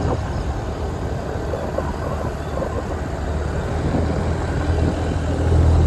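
A motor vehicle's engine running steadily with a low hum, growing a little louder near the end.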